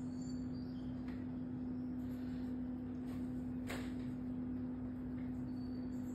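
A steady low hum on one unchanging pitch, with a fainter overtone above it, and a single short click about three and a half seconds in.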